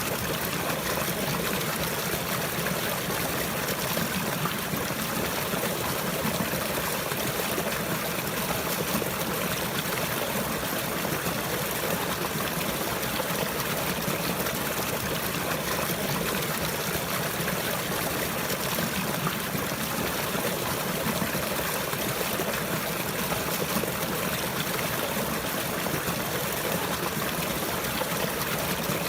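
Water flowing steadily, a continuous trickling stream with an even rushing hiss that does not change.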